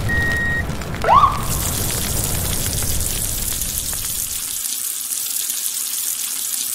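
A short high beep, then a quick rising chirp about a second in, followed by the steady hiss of water spraying from a toy fire truck's nozzle. A low rumble under the hiss stops about two-thirds of the way through.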